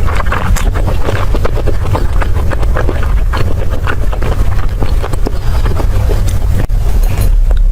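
Close-miked eating: chewing and wet mouth sounds, many short irregular clicks and crackles over a steady low rumble.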